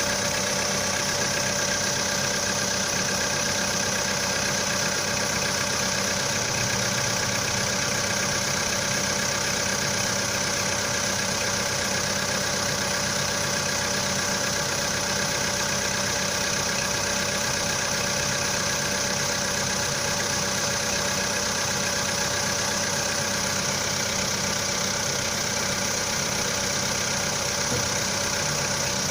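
Volkswagen Polo Sedan petrol engine idling steadily after a cold start, with all the electrical accessories switched on to load it. Its cold-start knocking, which the owner puts down to the pistons, has dropped to faint, very quiet tapping.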